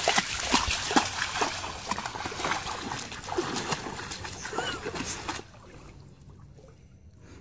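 A dog splashing as it bounds and plunges through shallow water, a quick run of splashes that dies away about five seconds in.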